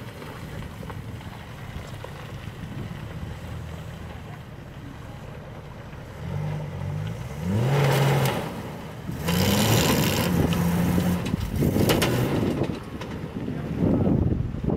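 Old Toyota Land Cruiser's engine running under load off-road, its pitch rising and falling as it revs from about halfway through. Several loud rushes of noise come over it in the second half.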